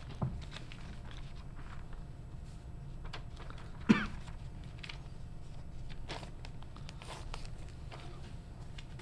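Quiet rustling and handling of paper pads and pens on a table near a microphone, over a low steady room hum. A sharp knock about four seconds in is the loudest sound, with a smaller one just after the start.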